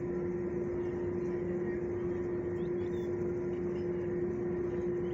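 Steady mechanical hum holding one constant droning tone, with a few faint high chirps about three seconds in.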